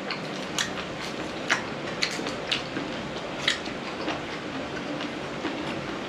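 Close-up chewing of crunchy blanched baby octopus, with sharp crunching clicks about once a second over a steady hiss.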